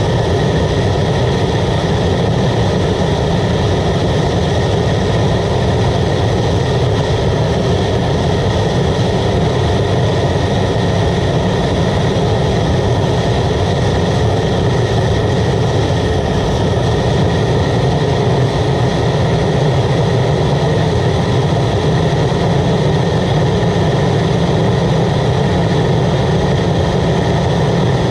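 Waste oil burner running steadily under a pan of water at a rolling boil: a loud, even rush of flame that does not change.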